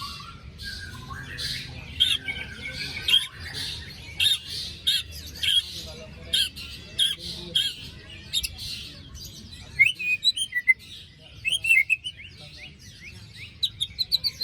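White-rumped shama calling, with a string of short, harsh rasping notes repeated about every half second. From about ten seconds in the notes give way to quick trilled runs.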